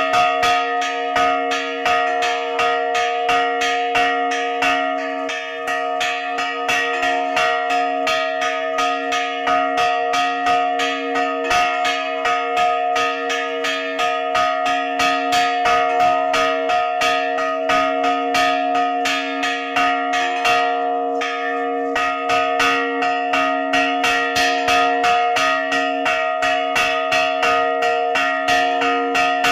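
A church bell rung by pulling its clapper on a rope, struck in rapid, even strokes at about three to four a second over its steady ringing hum, with a short break about two-thirds through. It is rung as the tercera llamada, the third call to Mass.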